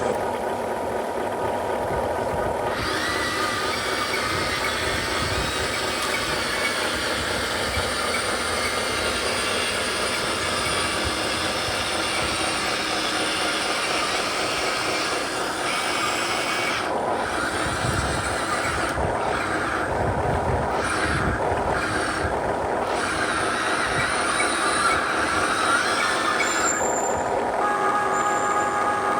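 Radio-controlled trucks running, their electric motors and geared drivetrains whining steadily, with squeals and changes in pitch as they work.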